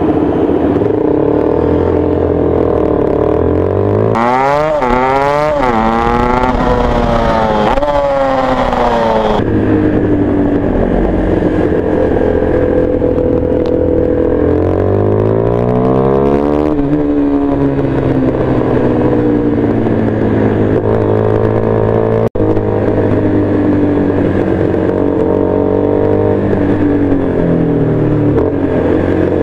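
A motorcycle engine heard from the rider's seat, pulling hard through the revs with its pitch climbing and dropping back several times about four seconds in, and again midway, and otherwise running steadily at cruising speed.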